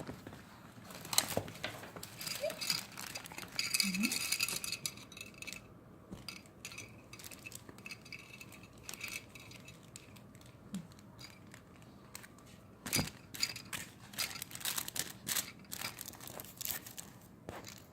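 Rustling, crinkling and clicking handling noises, with a few brief faint vocal blips.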